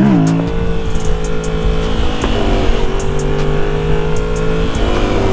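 Motorcycle engine running at a steady speed, its pitch rising briefly at the start and then holding level.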